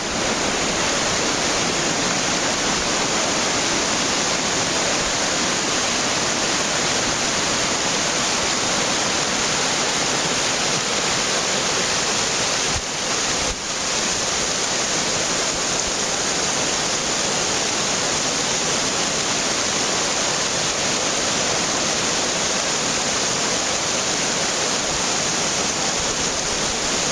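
Rushing whitewater of a mountain torrent tumbling over boulders: a steady, loud rush of water, dipping briefly twice about halfway through.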